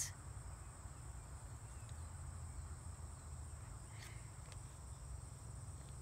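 Faint, steady high-pitched trilling of insects such as crickets, with a low rumble underneath.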